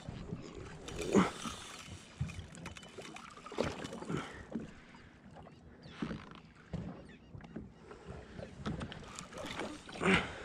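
Small waves slapping and sloshing against the hull of a drifting Sea-Doo GTI 90 jet ski, in irregular splashes a second or two apart, the loudest about a second in and again near the end.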